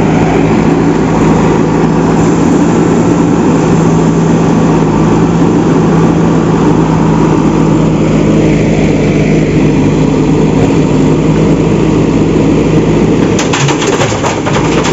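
An engine running steadily at an even speed, with a few sharp clicks near the end.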